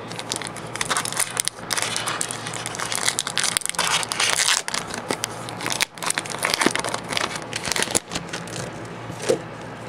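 Foil wrapper of a Pokémon trading-card booster pack crinkling and crackling as it is handled and torn open, with two brief pauses and a sharp snap near the end.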